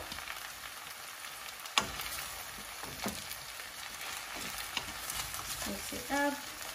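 Stir-fried noodles, chicken and vegetables sizzling in a hot wok while a wooden spatula tosses them, with scattered clicks and knocks of the spatula on the pan and one sharp knock about two seconds in. A brief pitched sound comes near the end.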